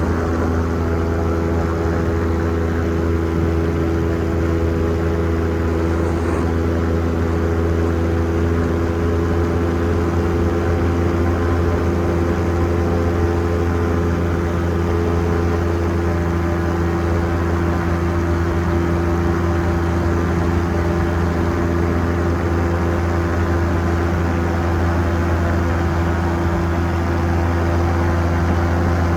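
An engine running steadily at constant speed, a continuous drone with a strong low hum and steady overtones that never change.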